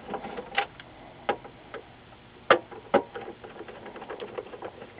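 Small, irregular clicks and ticks of a hand screwdriver turning out the screws that hold the stand to the plastic back of an LCD monitor, the two loudest clicks about two and a half and three seconds in.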